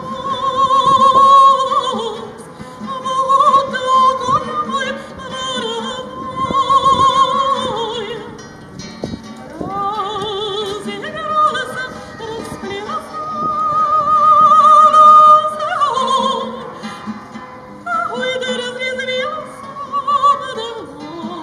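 A woman singing long held notes with a wide vibrato, accompanying herself on a strummed acoustic guitar.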